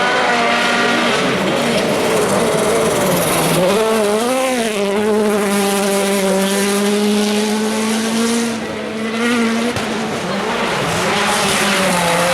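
Volkswagen Polo R WRC rally car's 1.6-litre turbocharged four-cylinder engine at full throttle: the revs rise and fall through a gear change about four seconds in, then hold one steady high note for several seconds, drop briefly, and climb again near the end.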